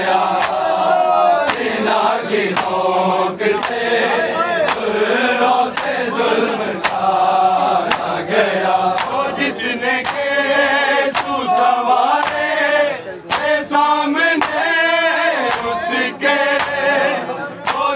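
Men chanting a noha together, the sung voices wavering. Sharp slaps land at a steady beat of about one a second, typical of matam (chest-beating) kept in time with the lament.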